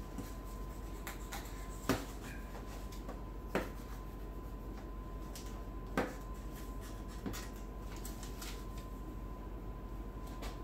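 A knife trimming the edge of a pie crust, clicking sharply against the pie tin and cutting board: a scatter of light clicks, four of them clearer, over a faint steady hum.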